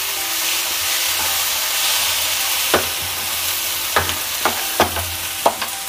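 Masoor dal, tomatoes and chopped vegetables sizzling in oil in a pan while a wooden spatula stirs them, with a few short knocks of the spatula against the pan in the second half.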